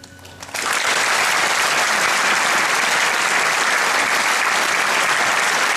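Large audience applauding, breaking out suddenly about half a second in as the song's last note fades, then holding steady.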